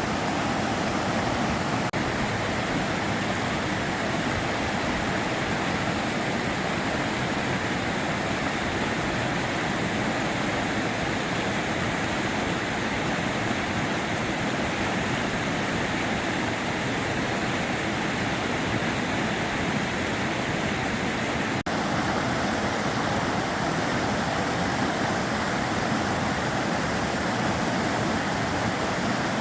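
Sava River water flowing, a steady, even rushing with no pauses.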